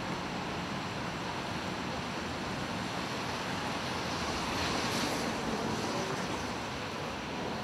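Steady outdoor city noise, an even roar of traffic and wind, swelling slightly about five seconds in.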